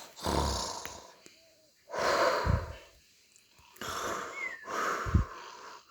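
Cartoon pig snoring: four breathy, wheezing snores in a row, some with a low rattle underneath.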